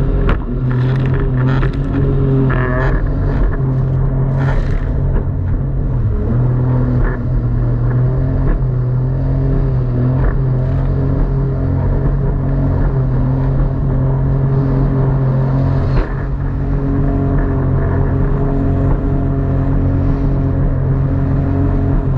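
Jet ski engine running steadily at speed, holding an even pitch, with a few short sharp knocks or splashes in the first several seconds.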